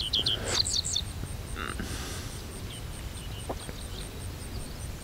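Birds chirping: a quick cluster of short high chirps in the first second, then a few scattered calls, over a steady low rumble and a faint, evenly repeated high ticking.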